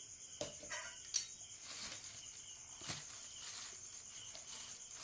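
Hand mixing flour into wet palm-fruit pulp in an aluminium bowl: a few soft squelches and light clicks, over a faint steady high chirring of crickets.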